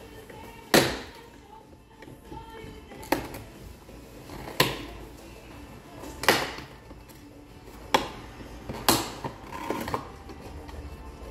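A series of sharp plastic snaps and clicks, about seven, spaced irregularly one to two seconds apart, each ringing briefly, as the plastic trim around the door pull of a 2017 Ford Explorer's door panel is worked loose by hand.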